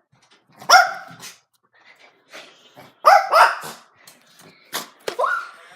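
Dog barking: separate sharp barks, one just under a second in, a quick pair about three seconds in, and two more near the end.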